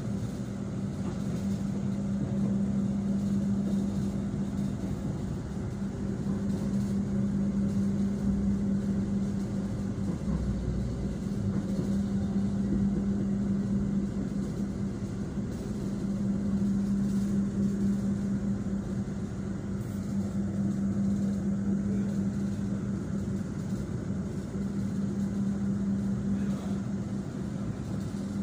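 Steady running noise of a passenger train heard from inside the carriage: an even rumble under a constant low drone.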